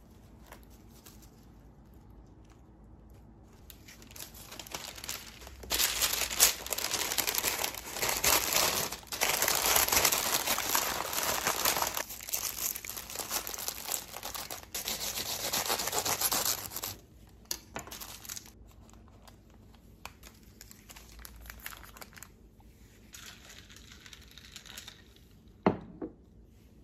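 Paper crinkling loudly as a sandwich is wrapped up and pressed in it by hand, for about twelve seconds, then softer rustling. A single sharp knock near the end.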